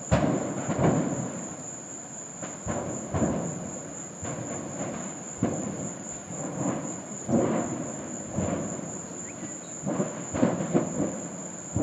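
Burning propane station heard from a distance: a string of low rumbling booms and surges, one every second or two.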